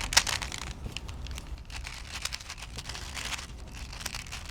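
Plastic clicks and rattles of a Rubik's Cube Twist puzzle being turned quickly by hand, many quick irregular clicks as the layers are twisted.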